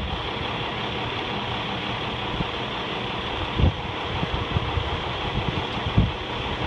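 Steady outdoor background noise, with two dull low thumps, one a little past halfway and one near the end.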